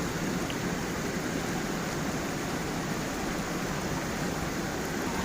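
Stream water flowing over a small waterfall, a steady, even rush with no break or change.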